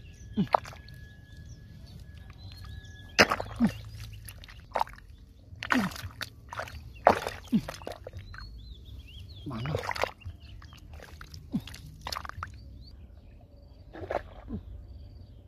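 A hand and arm working in a hole of wet mud and shallow water, giving irregular wet squelches and sloshes, about a dozen in all. Faint bird chirps sound behind.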